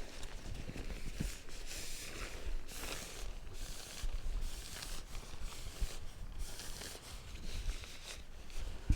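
Irregular rustling and scraping from tent poles and nylon tent fabric being handled during setup.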